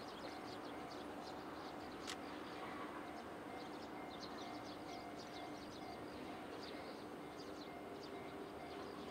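Quiet trackside outdoor ambience: many short, high chirps scattered throughout over a steady low hum, with a single sharp click about two seconds in.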